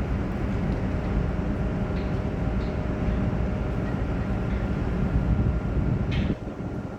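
Boat engine running steadily, mostly low in pitch, its level dropping a little about six seconds in.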